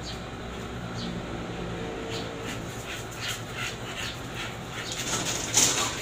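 American bully dogs moving about, making a run of short scuffing sounds, about three a second. Near the end there is a louder rustling clatter as one dog steps into a kennel with a plastic slatted floor.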